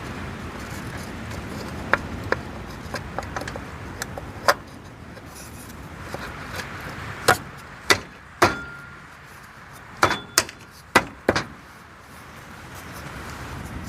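Sharp metallic clinks and knocks of tools and parts being handled, about ten at uneven intervals, one of them ringing briefly, over a steady background hiss.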